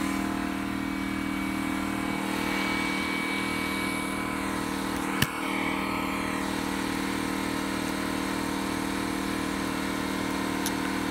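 Electric air compressor running steadily as it fills its tank, its pump giving a low, even beat of about four pulses a second. A single sharp click comes about five seconds in.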